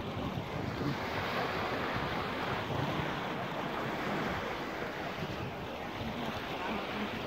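Steady wind buffeting the microphone, with choppy lake water washing against the rocky shore.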